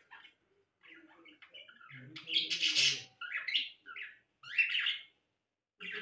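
Small pet parrots (budgies, cockatiels and a lovebird) chirping and squawking in repeated short calls, with a loud harsh squawk about two seconds in and a brief lull near the end.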